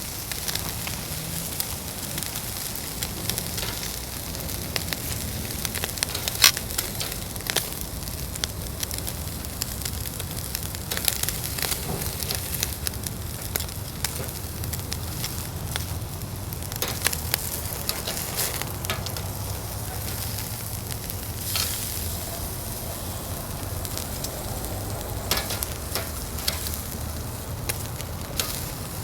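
Food sizzling on a grill over an open fire, with scattered sharp pops and crackles throughout.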